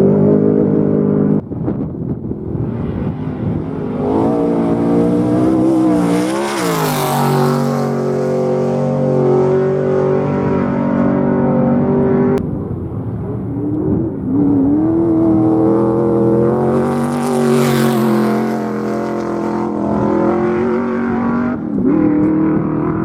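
Off-road race vehicle engines revving as they pass by, with the pitch rising and falling. Two vehicles sweep close past about six and seventeen seconds in, each with a rush of noise. The sound changes abruptly about a second in and again midway.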